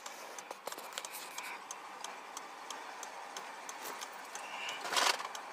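Faint, irregular small clicks and ticks of handling inside a parked car, with a louder brief rustle about five seconds in.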